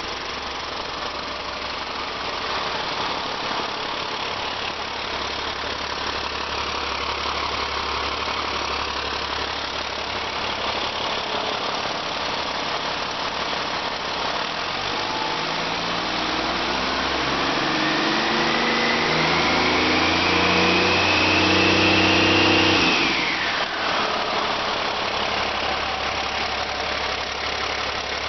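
2008 CAT C7 ACERT inline-six diesel engine, sold as a good-running unit, idling steadily. About halfway in it is revved up, with a whine climbing in pitch as it gets louder. About three-quarters through the throttle is let off: the whine drops sharply and the engine falls back to idle.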